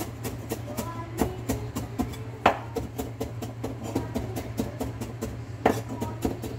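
Chinese cleaver rapidly mincing on a wooden cutting board: a steady run of about four to five chops a second, with two harder strikes, one near the middle and one near the end.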